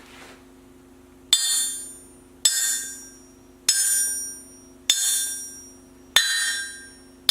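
Steel anvil ringing as a steel ball bearing of about one inch strikes its face again and again, once every second or so. Each strike gives a bright, high ring that fades before the next.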